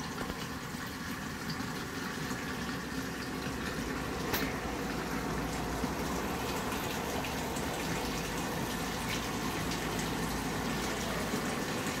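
Water running steadily from a tap, an even rushing sound, with a brief click about four seconds in.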